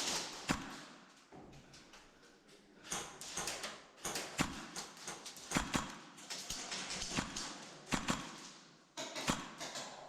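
Airsoft exchange in close quarters: a dozen or so sharp cracks and taps at uneven intervals, from shots and BBs striking hard walls and doors, with short echoes after each.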